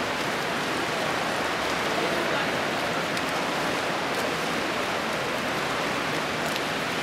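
Steady, even wash of water splashing from several swimmers swimming front crawl laps in an indoor pool.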